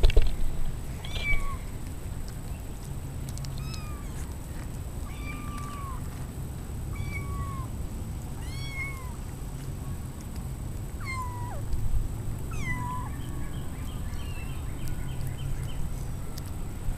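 Kittens mewing over and over, short high-pitched mews that rise and fall, about one a second, with a quicker run of little mews near the end.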